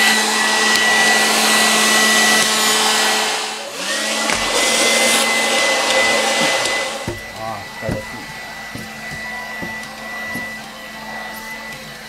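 HiKOKI R12DA 10.8 V cordless stick vacuum running on its standard setting: a steady high motor whine over rushing suction air. About four seconds in the sound briefly dips and the whine climbs back up. After about seven seconds the air noise falls away and the motor runs more quietly.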